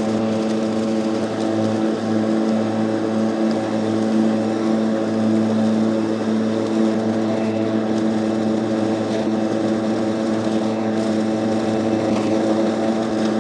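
Stihl cordless battery lawnmower, twin-bladed and fitted with a mulch plug, running steadily while mulching grass: a steady pitched hum of motor and spinning blades.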